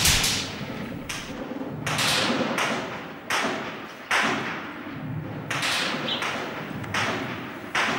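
Gunshots cracking irregularly, about one a second, each with a long echoing tail.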